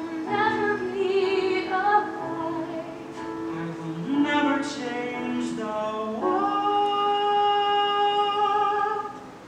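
A stage musical number: a singer's voice with instrumental accompaniment, ending on a long held note that stops about nine seconds in.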